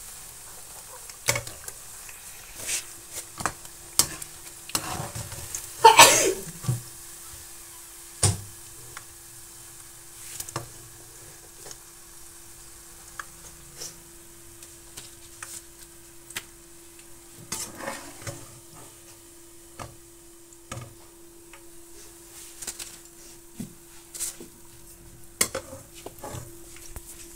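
Noodle pakoras deep-frying in hot oil in a wok, with a steady sizzle. A metal slotted spoon clinks and scrapes against the pan as the pakoras are turned and lifted out, with one loud clatter about six seconds in.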